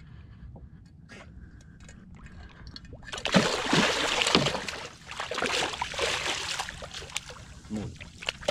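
A gaffed stingray thrashing at the surface beside a boat. After a few quiet seconds it splashes hard for about two seconds, then keeps splashing more weakly and unevenly.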